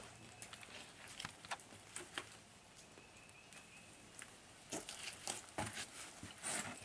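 Scattered, irregular footsteps of a hiker on a damp dirt trail, soft scuffs and knocks that come most often in the last couple of seconds.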